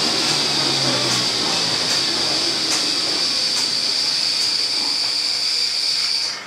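Steady mechanical running sound inside a Z 6300 train car: a constant high whine over an even hiss and rumble, with faint regular clicks a little under once a second. It cuts off suddenly near the end.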